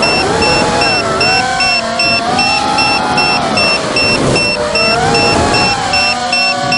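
Brushless motors and 5-inch propellers of a Martian 220 FPV racing quadcopter, heard from its onboard camera, whining loudly, their pitch rising and falling with the throttle.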